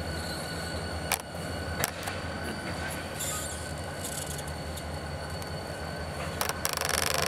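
EMD GP40 diesel locomotive's turbocharged 16-cylinder engine rumbling steadily as it rolls slowly through the yard. A thin high wheel squeal and a few sharp clicks from the wheels on the rails come with it, and the sound grows louder near the end.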